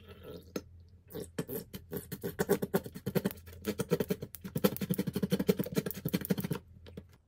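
Plastic squeeze bottle of honey mustard sauce squirting and sputtering as it is squeezed: a short spurt at the start, then a rapid, irregular run of squelchy spurts from about a second in, which stops shortly before the end.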